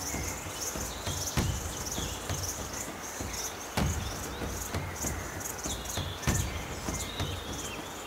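Insects chirping steadily in a fast, high, pulsing chorus, with a few low thumps over a faint low rumble.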